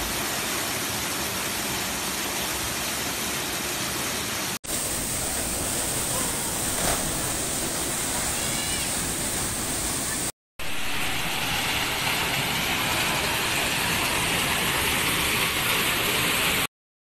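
Waterfall pouring into a plunge pool: a steady, even rush of falling water. It cuts out abruptly twice, briefly, and stops shortly before the end.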